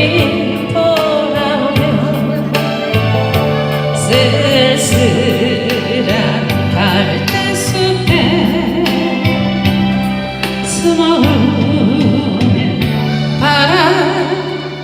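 A ballad sung with vibrato over backing music with a steady beat and bass line.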